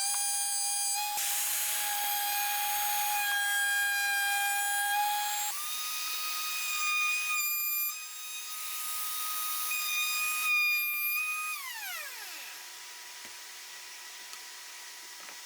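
Trim router running with a steady high whine, cutting wood with several bursts of rasping noise. Its pitch steps up about halfway through. It is then switched off and winds down with a falling whine.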